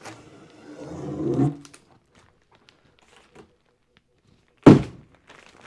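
Handling noise from a bagged package of motorcycle saddlebag liners, then a single loud thump about four and a half seconds in as the package is set down on a table.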